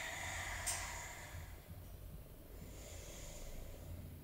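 A woman's slow breathing, close to the microphone: a breath fading out in the first second, then a fainter one around the middle, over a low steady hum.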